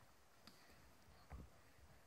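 Near silence: faint outdoor quiet, with one soft low thump just past halfway.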